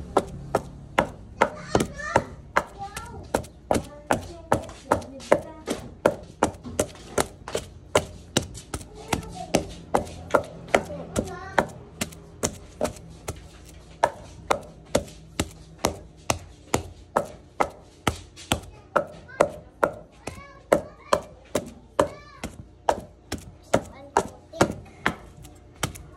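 Wooden pestle pounding mashed banana and grated coconut in a wooden mortar: a steady run of dull thuds, about two strokes a second.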